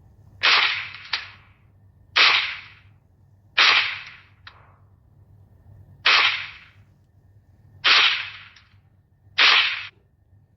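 Pistol shots, six in all at uneven intervals of about one and a half to two and a half seconds, each a sharp crack with a short echoing tail; the last one cuts off suddenly.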